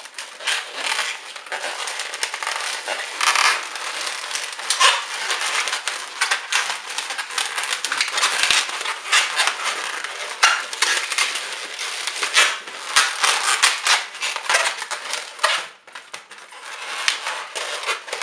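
Red latex modelling balloon being squeezed and twisted by hand, the rubber rubbing and squeaking against itself and the fingers in an irregular, crackly stream, with a short lull near the end.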